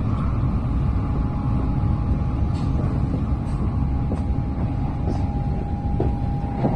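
Shinkansen train running noise heard inside the passenger car: a steady low rumble, with a thin steady whine that comes in about a second and a half in.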